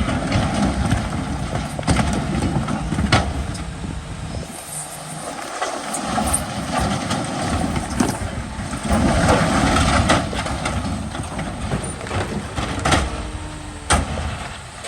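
Komatsu crawler bulldozer's diesel engine running under load, with sharp knocks now and then. The low rumble drops away briefly about five seconds in, then picks up again.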